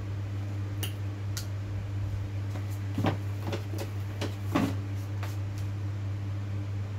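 Scattered light clicks and knocks of bottles, caps and a metal spoon being handled on a kitchen counter, the loudest about three seconds in and again past four and a half seconds, over a steady low hum.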